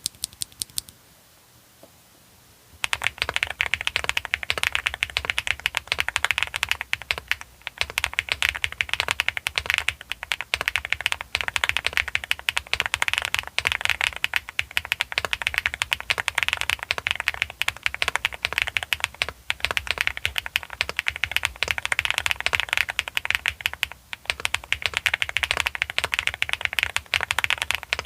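Typing on an Epomaker x Feker Galaxy 80 mechanical keyboard with Akko Cream Blue V3 switches: a few keystrokes at the start, then fast, continuous typing from about three seconds in, with a marbly key sound.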